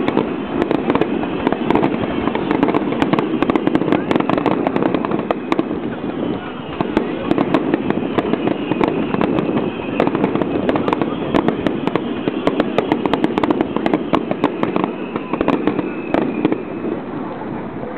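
Fireworks bursting with many sharp crackles and pops, over the chatter of a crowd of spectators.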